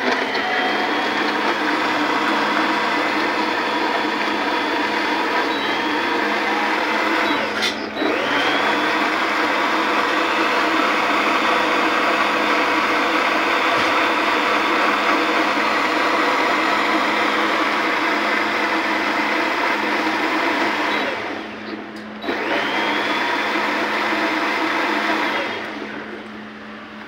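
Heavy-duty professional countertop blender running on a strawberry purée, its motor whine steady. It stops briefly about 8 seconds in and again about 22 seconds in, each time spinning back up with a rising whine, and winds down near the end.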